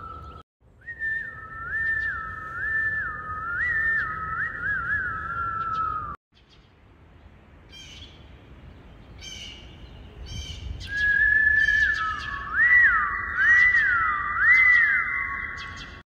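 Human whistling: long held notes with swooping slides and quick warbles. After a short break, small birds chirp in high, short calls. Near the end the whistling returns louder, in looping up-and-down glides, with bird chirps still in the background.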